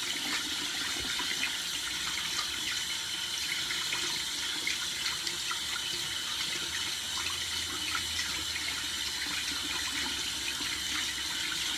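Tap water running steadily into a sink while slime-covered hands are washed under it, with small splashes; the water shuts off suddenly at the end.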